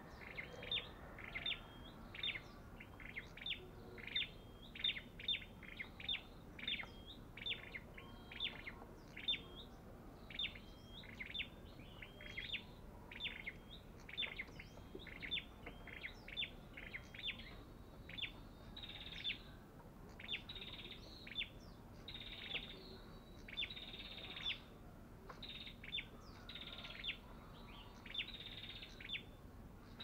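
Tailorbird (Orthotomus sepium) calling in a cage: a steady string of short, sharp chirps about two a second. In the second half, longer harsh chattering bursts break in among the chirps.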